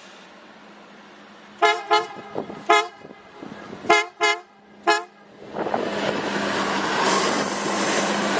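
MAN 621 diesel trainset sounding its horn in six short toots, in groups of two, one, two and one. It then passes close by with its diesel engine running and its wheels rumbling on the rails, the noise building from about five and a half seconds in.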